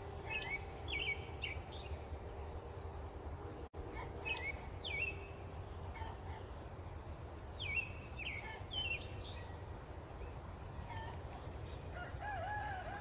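Birds chirping: short, high, hooked calls in three brief clusters over a steady low rumble.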